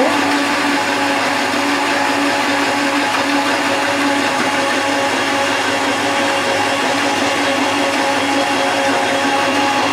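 Electric countertop blender running at a steady, unchanging pitch, mixing egg-based mayonnaise while oil is added in a thin stream to emulsify it.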